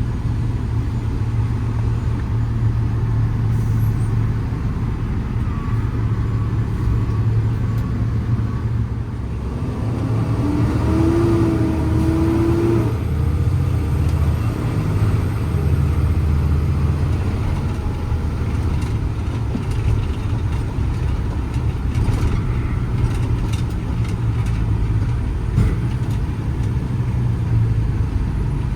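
Cummins ISL 8.9-litre diesel of a Freightliner M2 truck running on the road with a steady low drone. About ten seconds in, a brief whine rises in pitch and then fades.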